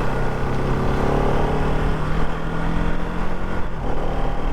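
Bajaj Pulsar NS200's single-cylinder engine running steadily at cruising speed, heard from the rider's position over a rush of wind and road noise.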